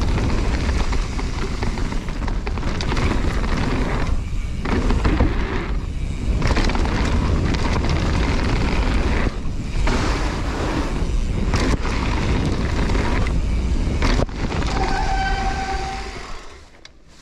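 A mountain bike descending a dirt jump trail at speed: wind buffeting the action camera's microphone and tyre and trail noise, broken by brief lulls and a few sharp knocks over the jumps. About fifteen seconds in there is a short, high brake squeal, then the noise dies down as the bike slows.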